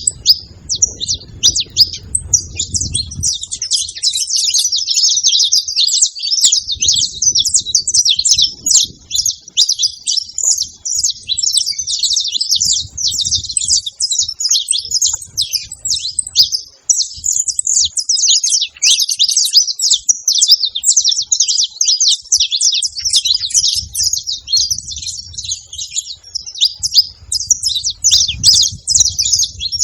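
Saffron finch singing a long, almost unbroken run of rapid, high chirps and trills.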